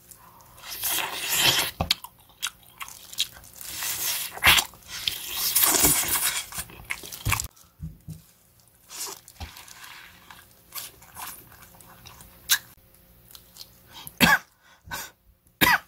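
A person with a heavy cold blowing her nose hard and coughing in two loud noisy spells, then short clicks, rustles and chewing as plastic-gloved hands pick meat off boiled bones and she eats.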